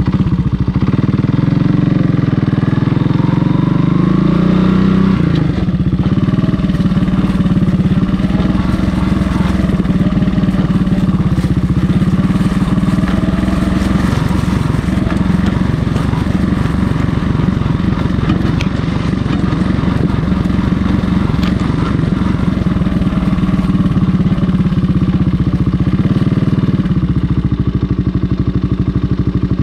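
1985 Honda ATC 200S three-wheeler's single-cylinder four-stroke engine running under way. It revs up over the first few seconds, then pulls steadily, heard close from a camera mounted under the frame.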